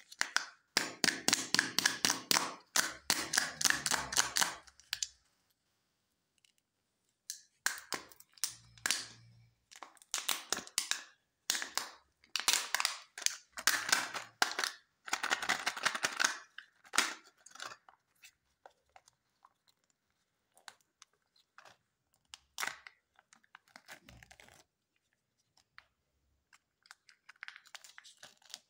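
Crinkling and tearing of a Kinder Joy egg's plastic wrapper being pulled off by hand, in long runs of rapid crackles, thinning to scattered ticks later on, with a short crackle near the end as the seal on the chocolate half is peeled back.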